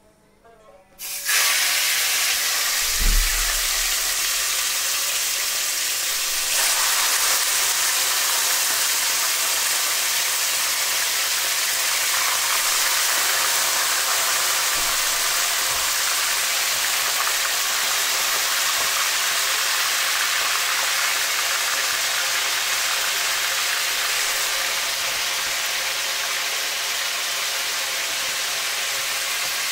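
Chunks of raw meat frying in hot oil in a kazan: a loud, steady sizzle that starts suddenly about a second in as the meat hits the oil. There is one low thump about three seconds in.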